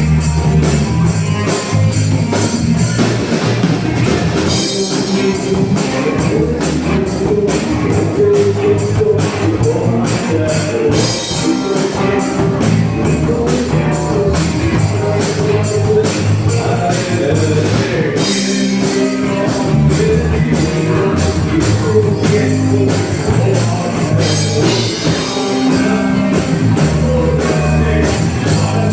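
Live rock band playing, with a drum kit keeping a steady, driving beat under guitar.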